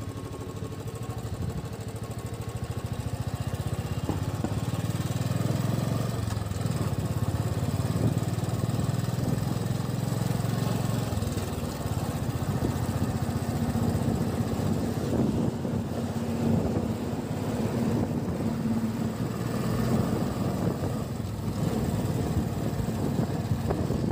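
Motorcycle engine running as the bike pulls away and rides along, getting louder about four seconds in as it picks up speed, then holding a steady note.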